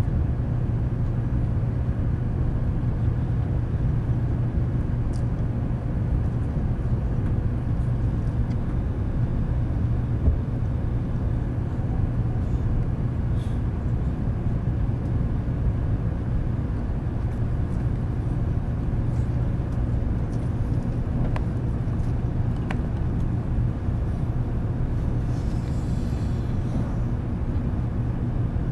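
Steady low rumble and hum inside the passenger cabin of a 700 series Shinkansen.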